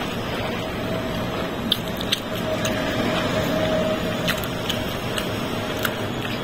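Fingers squishing and mixing biryani rice and meat on a plate, with scattered light clicks, over a steady background hiss.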